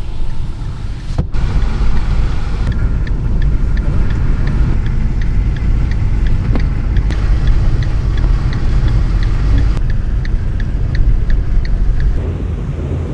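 Maruti Suzuki Brezza driving on a snow-covered road: a steady low rumble of engine and tyres, with a regular light ticking for several seconds in the middle.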